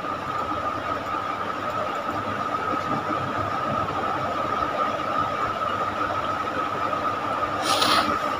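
Steady background noise with a constant high-pitched whine, and a short burst of hiss about a second before the end.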